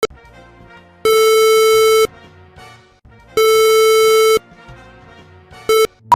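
Loud electronic alarm buzzer: two steady one-second buzzes about two seconds apart, then a short blip near the end, all on one low, harsh pitch.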